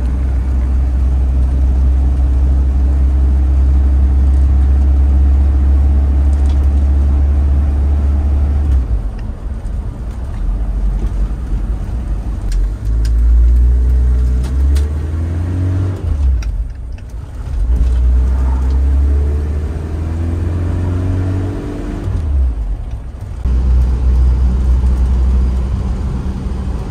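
Toyota Land Cruiser driving, heard from inside the cabin: a steady low engine drone with road noise. Twice in the second half the engine climbs in pitch as it pulls, then drops back suddenly as the manual gearbox is shifted up.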